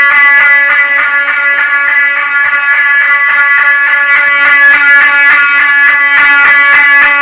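Fire alarm horns sounding continuously during a test of the building's fire alarm system: a loud, steady electronic horn tone with many overtones.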